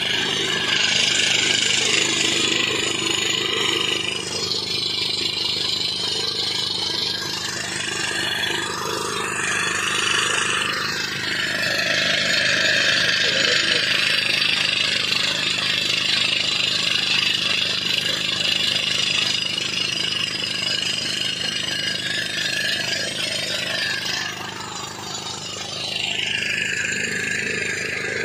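Crawler-mounted pneumatic rock drill hammering into rock and ground, a continuous loud percussive clatter, with its Doosan portable air compressor running alongside. The noise eases briefly a few seconds before the end.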